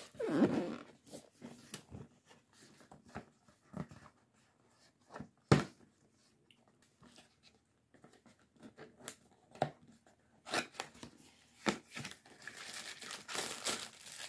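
A cardboard box being handled and opened: scattered taps and scrapes of the flaps, a sharp snap about five and a half seconds in, and a busier run of crinkling and scraping near the end as a plastic bag is pulled out.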